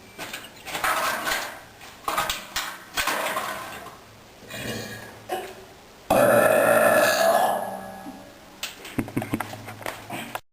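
A person burping: several short burps in the first few seconds, then one long, loud belch about six seconds in.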